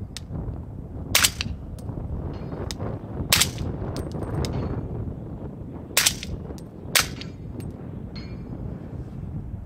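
Four suppressed shots from a 16-inch AAC .300 Blackout AR-15 firing 220-grain subsonic ammunition through an AAC Titan Ti suppressor, the last two about a second apart. Steady wind noise on the microphone runs underneath.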